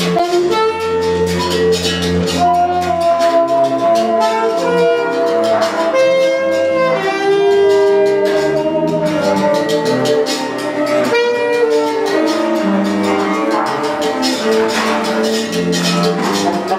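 Free improvised jazz in a tunnel: alto saxophone and trumpet playing held, shifting notes over low double bass notes, with scattered percussion strokes.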